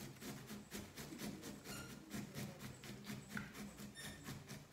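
Peeled zucchini being grated by hand on a metal grater into a plastic bowl: even scraping strokes, about three a second.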